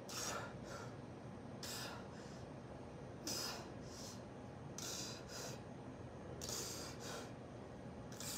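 A man breathing in short, sharp, hissing puffs, one or two at a time about every second or so, in rhythm with dumbbell reps.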